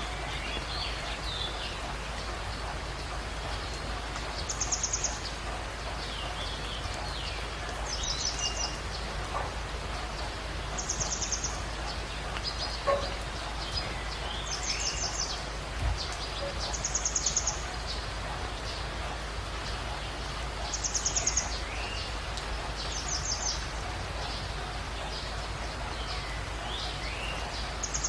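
Steady rain falling, while a songbird repeats a short, high, buzzy trill every three to four seconds, with fainter chirps from other birds in between.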